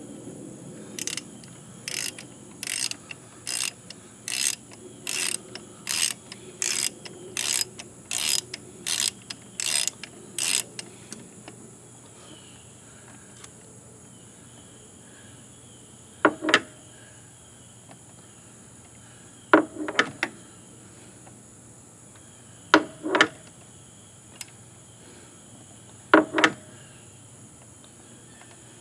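A series of sharp mechanical clicks, about one every 0.7 seconds for some ten seconds and growing a little louder. After a pause come four louder double clicks, about three seconds apart.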